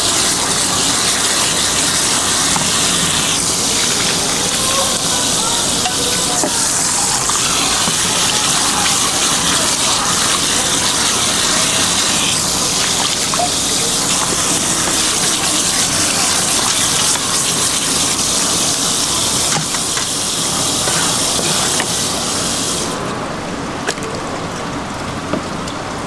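Running water gushing and splashing as seafood is rinsed under it. About three seconds before the end the hiss thins out and the sound gets a little quieter.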